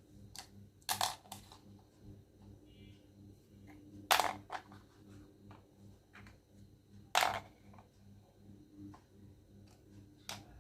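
Scattered sharp clicks and taps of small plastic toy make-up pieces being handled, the loudest about four and seven seconds in, over a steady low hum.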